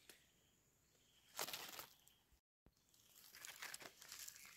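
Near silence, broken by a short rustle and crackle of dry fallen leaves about a second and a half in and fainter rustling near the end, as a hand works a white egg-stage Amanita mushroom out of the leaf litter.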